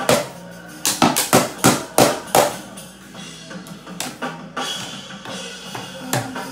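Toy drum kit beaten with drumsticks by a small child. An uneven flurry of about seven hits comes in the first two and a half seconds, then a few scattered strokes, over background music with steady low tones.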